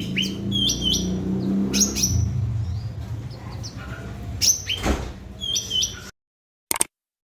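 Cucak ranting bird singing in bursts of sharp chirps and short, quickly falling whistles, over a steady low hum. The sound cuts off suddenly about six seconds in, followed by a single brief click.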